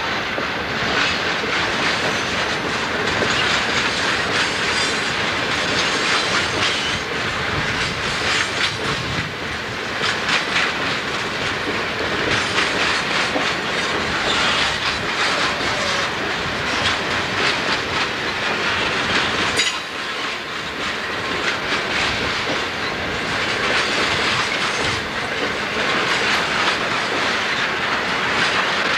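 Coal hopper cars of a long freight train rolling past steadily, wheels clicking over the rail joints along with a continuous rumble and rattle of the cars.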